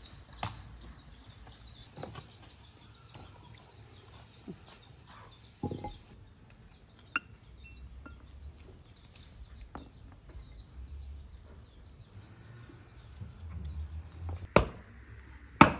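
Chickens clucking now and then, with small knife clicks as green plums are cut by hand, and two sharp clinks near the end about a second apart.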